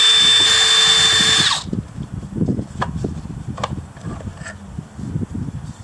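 DeWalt cordless drill running steadily as it drives a screw out of a battery pack's plastic casing, cutting off suddenly about a second and a half in. After that come scattered light clicks and knocks as the plastic casing is handled.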